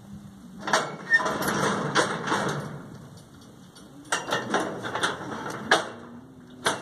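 Galvanized steel cattle-chute panels rattling and clanking in two spells of a couple of seconds each, with a single sharp clack near the end.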